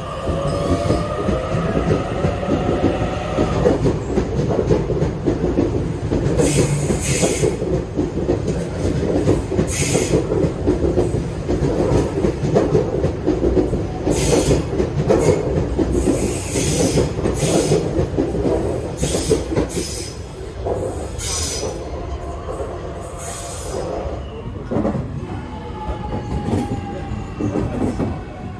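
Sydney electric suburban train running along the platform: a steady rumble of wheels on rail, with short high-pitched bursts of wheel noise through the middle. A motor whine glides in pitch in the first few seconds and again near the end.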